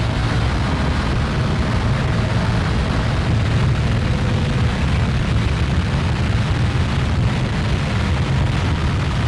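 Experimental electronic drone-noise music played live: a dense, steady low rumble with a haze of noise above it.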